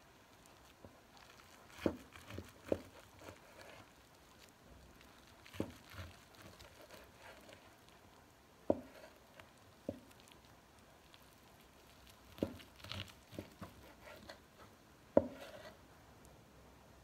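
Kitchen knife slicing through a seaweed-wrapped rice roll on a plastic cutting board. The blade sets down on the board in about eight sharp knocks, a second to three seconds apart, with soft crackling between them as it saws through the dried seaweed.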